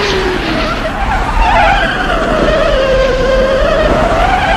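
Heavy truck's dual tires screeching in a skid over a low engine rumble, the screech dipping in pitch and rising again.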